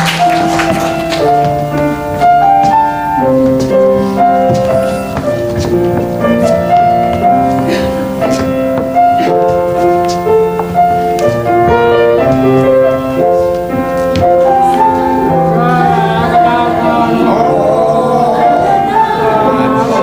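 Piano-led instrumental introduction to a worship song, a melody of held notes over chords. Voices begin singing along about four seconds before the end.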